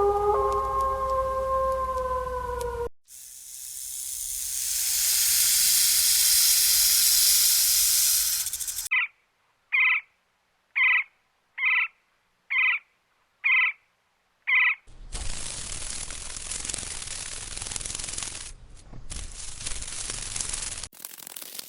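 A string of separate animal sounds. A drawn-out howl ends about three seconds in, then a loud hiss swells and holds for several seconds and cuts off. Next come seven short, evenly spaced calls, then a stretch of rough, noisy sound.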